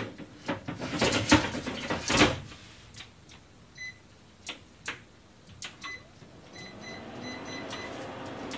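Clattering knocks of cookware at the stove, then short electronic beeps from a kitchen appliance's buttons: one beep about four seconds in, and a quick run of about six beeps near the end.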